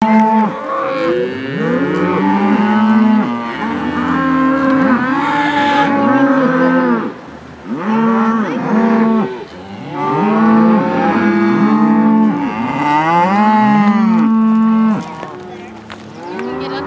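A herd of cattle being driven, many cows mooing at once with overlapping calls of different pitches, almost without a pause.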